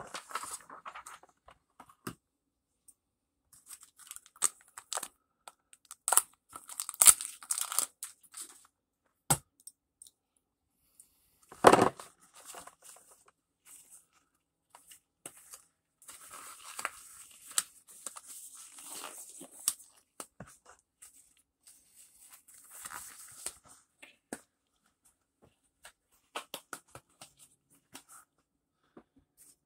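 Intermittent crinkling and tearing, like packaging being handled, with scattered light clicks and one louder knock about twelve seconds in.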